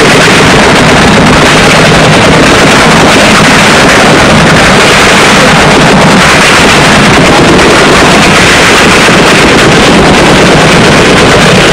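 CH-47 Chinook tandem-rotor helicopter running close by: a loud, steady, rapid beating of the rotors over the engine noise.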